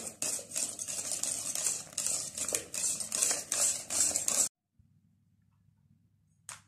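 Hand wire whisk beating cream in a stainless steel pot, in quick rhythmic strokes of about three a second, the whisk scraping and tapping the metal. It cuts off suddenly about four and a half seconds in.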